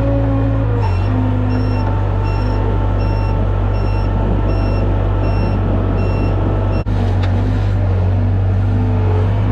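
Skid loader engine running steadily while its back-up alarm beeps about one and a half times a second as it reverses; the beeping stops near the end.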